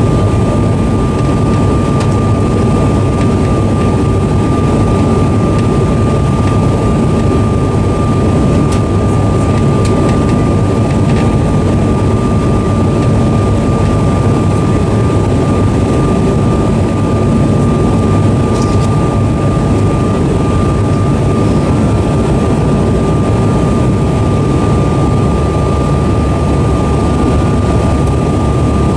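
Steady cabin noise of a Delta CRJ-900 regional jet on approach, heard from inside the cabin: the even drone of its turbofan engines and airflow, with a thin steady whine running through it.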